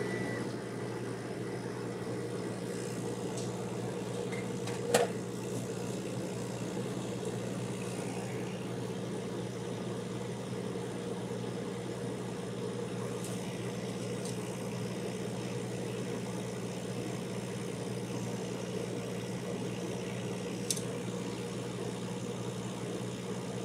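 Monport Reno Pro 45-watt CO2 laser engraver running with a steady hum, with a sharp click about five seconds in and a smaller one near the end.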